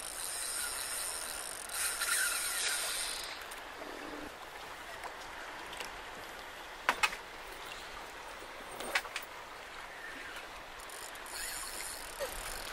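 Spinning reel ticking and winding as a hooked fish is played on a bent rod, over water lapping. A few sharp knocks come about seven and nine seconds in.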